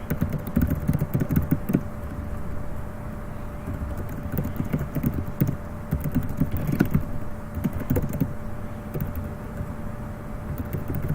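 Irregular clicks and knocks, like equipment being handled, over low rumble and a steady electrical hum.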